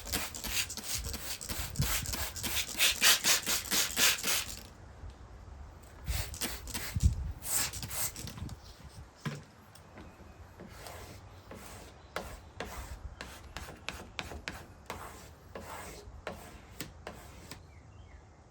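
Trigger spray bottle pumped rapidly, about four hissing sprays a second, wetting a vinyl decal. After about four and a half seconds it stops, and a felt-tip squeegee rubs over the wet vinyl in quieter, irregular strokes.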